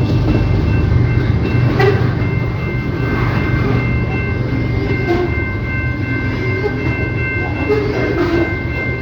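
CPKC freight train rolling past, with a heavy low locomotive rumble and several steady high-pitched tones held throughout.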